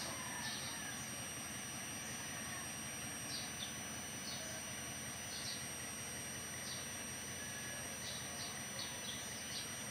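Outdoor ambience: a steady background hiss with short high chirps of small birds calling every second or so, over thin steady high tones.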